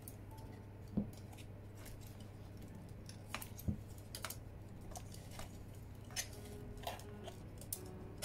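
Hard plastic model kit parts being handled, fitted and adjusted on the figure: scattered light clicks and taps of plastic pieces, over a steady low hum.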